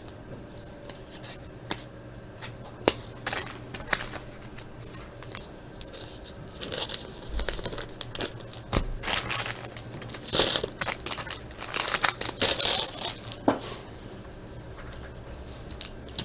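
Wrapper of a baseball card pack being torn open and crinkled, with light clicks of cards being handled first; the crinkling comes in several bursts in the second half.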